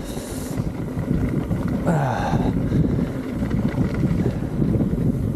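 Wind buffeting the microphone over a steady low rumble of fast downhill riding.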